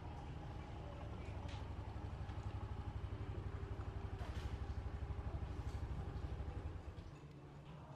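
A motor vehicle's engine running, a low pulsing rumble that fades away about seven seconds in.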